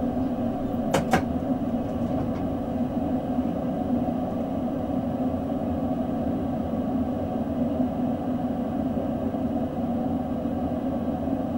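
Steady hum and rumble of an S-Bahn electric train standing at a platform, heard from the driver's cab, with two sharp clicks about a second in.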